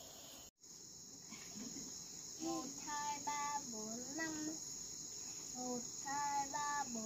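Steady, high-pitched insect chorus, with the sound dropping out completely for an instant about half a second in. A child's voice calls out a few short times from about two and a half seconds in.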